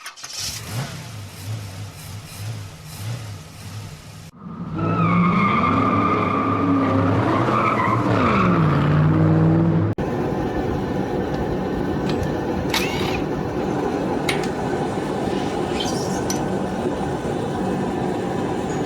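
A vehicle engine running with a pulsing, uneven idle, then revved up and back down loudly. About ten seconds in, it cuts abruptly to a steady mechanical hum with a few clicks.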